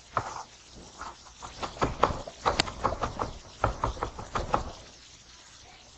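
Kitchen knife chopping parsley finely on a white plastic cutting board: a quick, uneven run of knocks of the blade on the board, stopping near the end.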